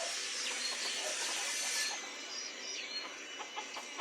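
Faint, soft chirps and peeps from young chickens settling on their roost, over a steady high hiss that thins out about halfway through.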